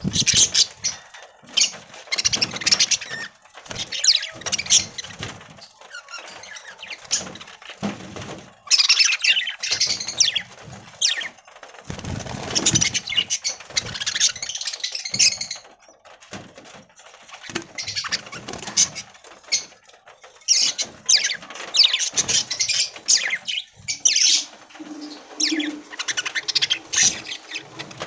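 A flock of budgerigars chirping and chattering, a dense, fast high warble coming in bursts with short lulls.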